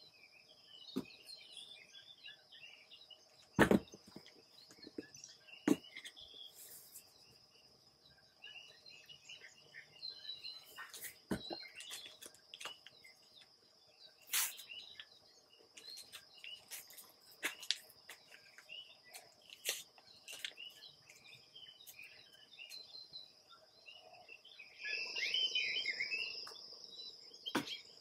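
Outdoor ambience: a steady, high-pitched insect drone with scattered bird chirps. A few sharp clicks and knocks cut through, the loudest about 4 and 6 seconds in, and there is a short rustling stretch near the end.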